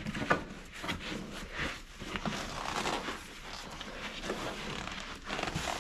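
Vinyl seat cover rustling and scraping as it is pulled and stretched down over a foam seat cushion, with irregular small creaks and clicks from the handling.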